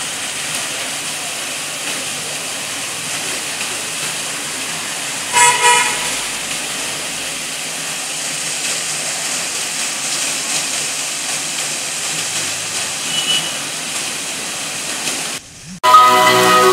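Water from a cascade fountain and its row of foam jets splashing with a steady rush. About five seconds in there is one short toot of a vehicle horn.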